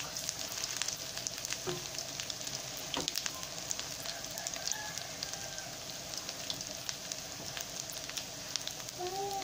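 Huauzontle patties frying in shallow oil in a nonstick pan: a steady sizzle with frequent small pops and crackles.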